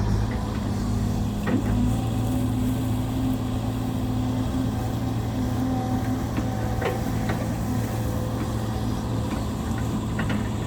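Diesel engine of a Sumitomo SH130-6 excavator, an Isuzu unit, running steadily at an even pitch, with little howl to it.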